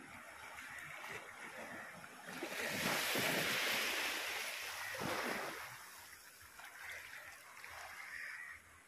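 Sea waves washing in among shoreline rocks and splashing against them, a hissing wash that swells loudest about three seconds in, surges once more around five seconds, then subsides.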